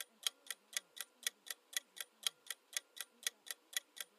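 Countdown-timer sound effect: a clock ticking evenly, about four sharp ticks a second.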